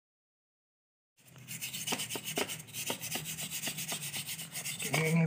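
Silence for about a second, then a toothbrush scrubbing the fins of a graphics card's aluminium heatsink: quick bristly strokes, about five a second. A short low hum comes near the end.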